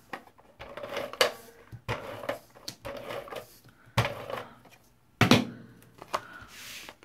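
Scotch Advanced Tape Glider adhesive gun run across cardstock in about four short strokes. A sharp knock about five seconds in, the loudest sound, as the gun is set down on the table.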